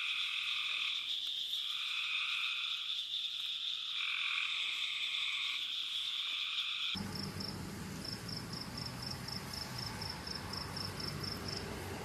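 A loud, steady chorus of periodical cicadas buzzing, with a lower part that swells and fades every second or two; it cuts off suddenly about seven seconds in. Then comes a quieter night background with a short high chirp repeating about three times a second.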